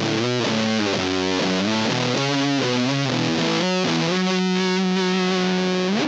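Electric guitar played through a germanium fuzz pedal, the Anvil Audio Fuzz, with its fuzz knob fully up and the guitar's volume rolled back slightly to clean it up. A run of fuzzy notes gives way about four seconds in to one long sustained note, which slides down in pitch at the very end.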